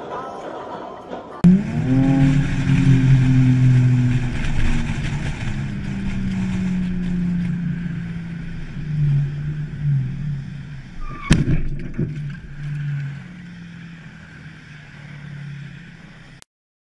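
Vehicle engine running on dashcam audio, a steady low hum that starts abruptly about a second and a half in and wavers in pitch. A single sharp knock comes about eleven seconds in, and the sound cuts off suddenly near the end.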